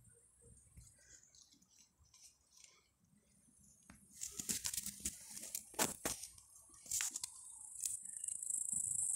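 Pepper plant leaves and stems rustling and crackling against the phone as it is pushed through the foliage, with sharp clicks from about four seconds in. Near the end a steady high-pitched insect trill, like a cricket, grows louder.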